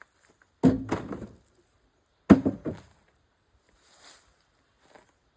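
Two heavy thunks about a second and a half apart, each followed by a brief clatter: pieces of cut firewood being thrown down.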